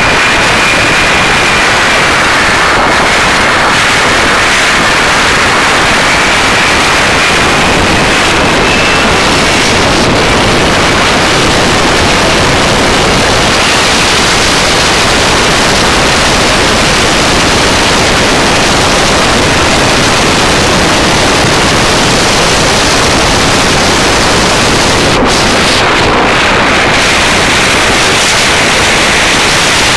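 Supercharged 572 cubic inch V8 of a ski boat running at speed, heard onboard as a constant loud roar so heavy it overloads the microphone into a hiss, mixed with wind and spray. A faint high whine rides over it, rising slightly about a quarter of the way in.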